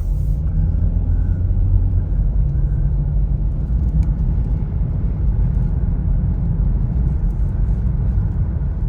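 Steady low rumble of road and engine noise heard inside the cabin of a Mercedes-Benz GLK 250 SUV driving off and cruising along.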